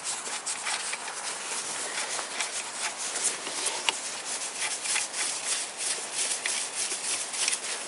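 Socket wrench on a long extension loosening a 10 mm bolt on the oil pump intake pipe of a Toyota VVT-i engine. Scattered small metallic clicks and rubbing over a steady hiss.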